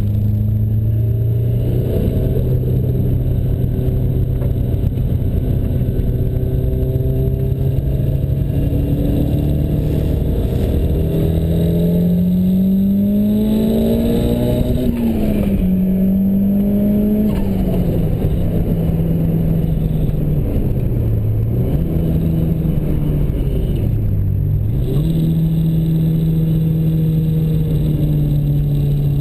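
Ford Sierra Cosworth's turbocharged four-cylinder engine heard from inside the cabin while lapping a race track. It runs at steady revs, climbs in pitch under acceleration about halfway through, drops back with a gear change, dips twice briefly off the throttle and then holds steady again.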